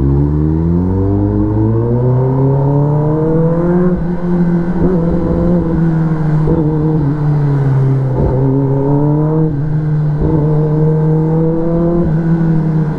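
Kawasaki ZX-10R inline-four engine heard from the rider's seat, its pitch rising steadily as the bike accelerates through the first four seconds, then running at a steady cruise with small throttle changes.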